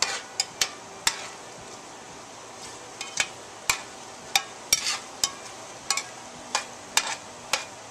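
Metal spoon clinking and scraping against a metal pot while chicken and vegetables are stirred in hot grease: irregular sharp clinks, about two a second, over a steady sizzle.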